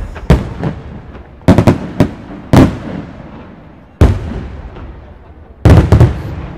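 Aerial firework shells bursting in the sky: a string of sharp bangs at irregular intervals, each followed by a rolling echo, with a quick cluster of several bangs near the end.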